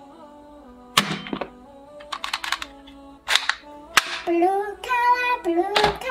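Background music with a melody, over which hard plastic toy guns clack and click as they are handled: a sharp knock about a second in, a quick run of clicks just after two seconds, and more knocks later on.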